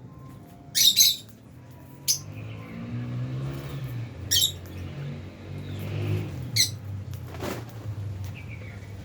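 Lovebirds giving short, shrill chirps five times, the loudest sounds here. Underneath is a low rumble of a vehicle engine that comes in after about two seconds and rises and falls.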